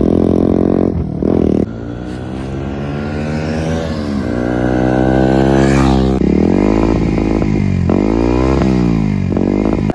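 Bajaj Pulsar NS160's single-cylinder engine through an SC Project aftermarket exhaust. It runs loud with the pitch climbing and falling as the bike is ridden, with a cut about a second and a half in. About six seconds in it breaks into several quick throttle blips, each rising and dropping.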